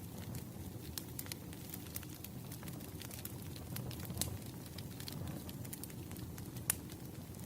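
Fireplace crackling: a low steady rumble of burning with irregular small pops and snaps, one sharper pop near the end.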